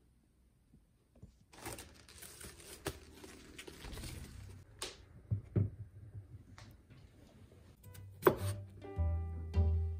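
Plastic cling wrap on a head of cabbage crinkling and rustling for about three seconds as it is handled, followed by a few light knocks and a sharper knock near the end. Soft background music comes in during the last second.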